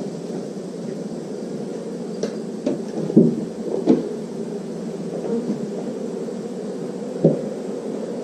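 A honeybee swarm buzzing steadily. A few dull knocks are heard from handling, the loudest about three and four seconds in and another near the end.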